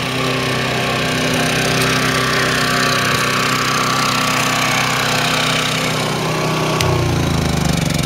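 Champion 3400-watt inverter generator running steadily at normal idle with eco mode off, its engine note evenly pitched, with other small inverter generators running alongside. The sound grows a little fuller early on and takes on a deeper low hum about seven seconds in as the microphone comes up close to the Champion.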